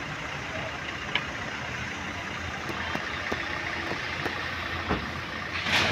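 Steady outdoor background noise, mainly the hum of road traffic, with a few faint ticks.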